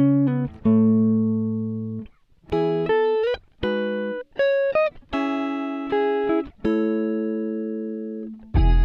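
Background music: a plucked guitar playing single notes, one after another, each note ringing out and fading before the next.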